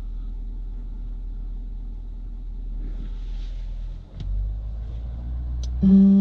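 Ford F550's 6.7-litre Power Stroke V8 diesel idling with a steady low rumble. A click comes about four seconds in, and just before the end a loud steady hum cuts in as the power take-off engages.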